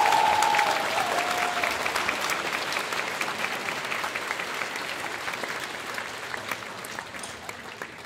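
Large crowd applauding, dense clapping with cheering in the first second or so, the applause then dying away gradually.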